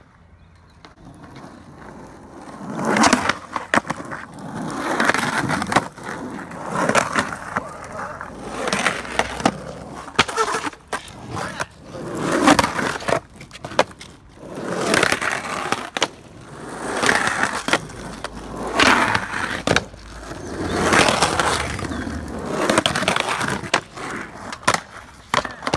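Skateboard wheels rolling over rough asphalt in swells about every two seconds, broken by sharp clacks of the board and trucks striking the ground and the curb.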